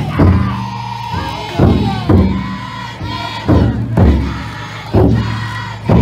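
A futon daiko festival float's big taiko drum is struck heavily about once a second, often in close pairs. A crowd of bearers chants and shouts along with it.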